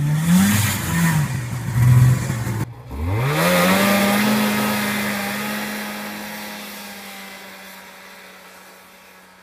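1978 Kawasaki Drifter snowmobile's two-stroke engine revving in short blips, then, after a cut about three seconds in, revving up sharply as the sled pulls away and holding a steady note that fades as it heads off into the distance.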